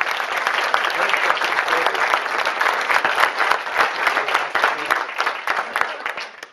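Audience applauding: many hands clapping together in a dense patter that dies away near the end.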